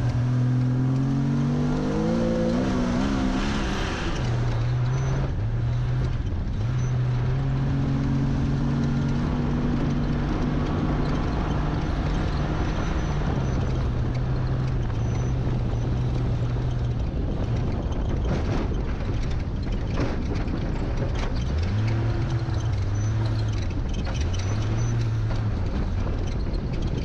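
Jeep Comanche Ultra4 race truck's engine pulling away from a standstill, its pitch rising over the first few seconds. It then runs hard under load, the note dropping and climbing again several times as the truck shifts and lifts over rough dirt track. A steady rush and scattered knocks and rattles from the rough ground run underneath.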